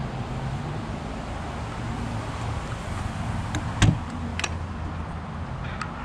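Trailer entry door being unlatched and opened: a sharp latch click about four seconds in and a lighter click just after, over a steady low outdoor rumble.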